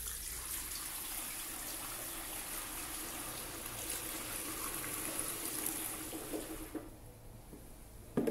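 Petrol pouring in a steady stream from a plastic fuel can through a large funnel with a filter into a motorcycle fuel tank, trailing off about seven seconds in.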